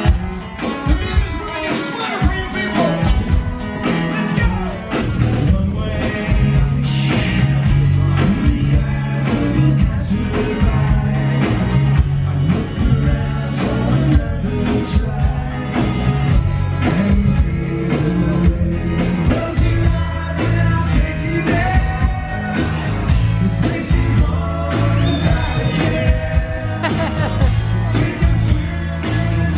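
Rock band music with singing over a steady bass line.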